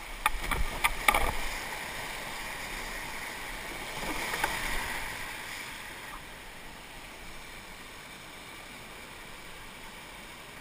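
Whitewater rapid rushing steadily around an open canoe, heard close to the water from the boat, with several sharp hits in the first second or so and a louder surge of water about four seconds in.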